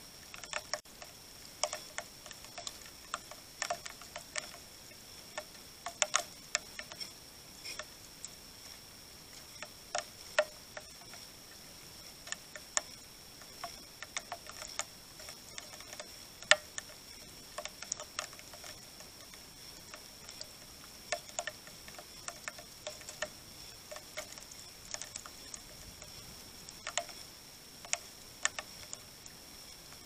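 House sparrows pecking at grain on a wooden stump: irregular sharp ticks and taps, sometimes several in quick succession, with short pauses between.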